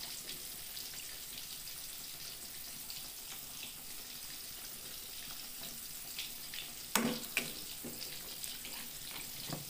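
Metal ladle stirring boiled greens in a pot of water, with a steady crackling hiss of frying throughout.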